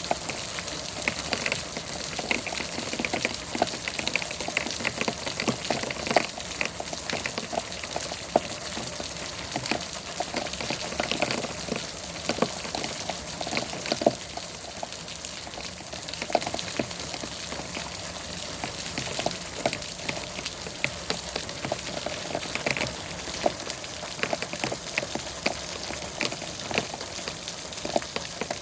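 Steady rain falling, an even hiss with many irregular, close-by drips striking a surface.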